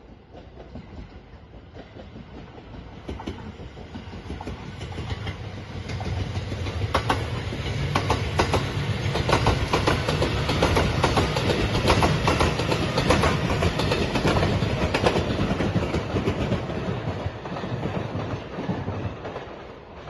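Rapid Marine Liner electric multiple-unit train approaching and passing at speed, its wheels clattering rhythmically over rail joints. It builds up over the first several seconds, is loudest through the middle, and fades near the end as it goes away.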